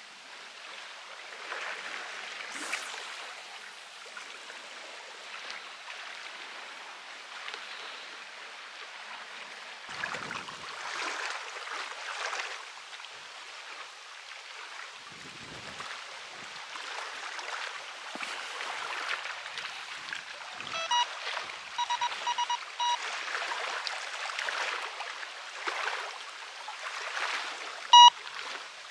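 Steady, shifting rushing noise outdoors. About two-thirds of the way in comes a quick run of short electronic beeps, and near the end two loud single beeps.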